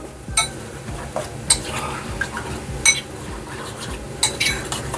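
A metal spoon stirring coconut milk powder into liquid to break up the lumps, clinking sharply against the side of the container about four times.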